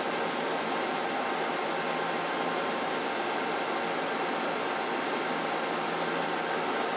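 Steady background hiss with a faint low hum, like a fan or air conditioner running in a small room; no distinct event stands out.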